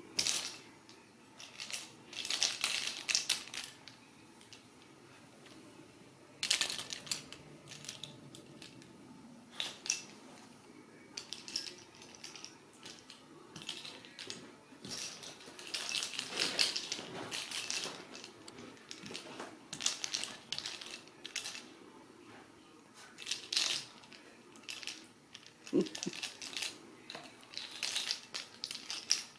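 Hollow plastic cat-toy ball rattling and clattering in irregular bursts as kittens bat and chase it.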